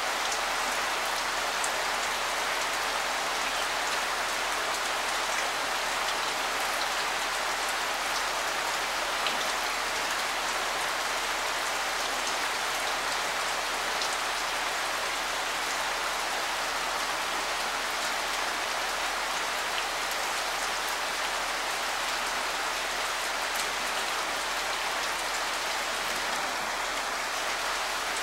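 Steady rain falling, an even hiss with scattered sharper drop ticks.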